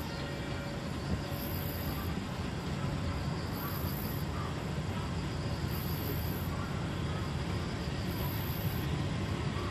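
Kurobe Gorge Railway narrow-gauge electric locomotive and its trolley cars approaching on the track, a low rumble that grows slowly louder as the train comes closer.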